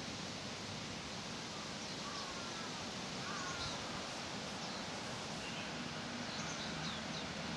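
Leaves rustling steadily in the breeze while small birds chirp now and then with short high calls, plus a couple of lower sliding calls about two to three seconds in. A faint low hum of distant traffic comes in near the end.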